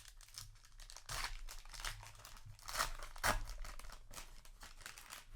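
Foil trading-card booster pack wrapper being torn open and crinkled in the hands, in several short irregular rustles, the loudest about three seconds in.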